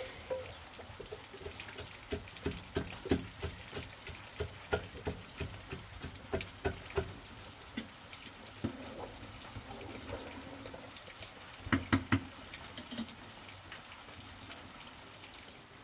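Wooden plunger pumped up and down in a metal jug of dairy, churning it: a run of sloshing thuds about three a second, a lull, then three hard strokes about three quarters of the way through.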